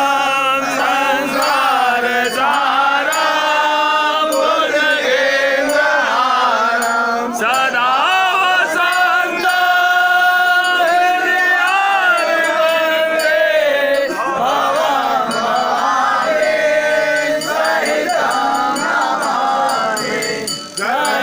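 Hindu devotional aarti hymn sung in a chanting style, with long held notes that waver in pitch. Light metallic clinking keeps on under the singing.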